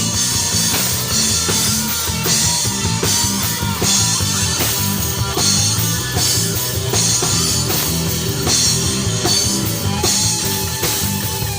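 Live rock band playing an instrumental passage with a steady beat: drum kit, electric guitar and bass.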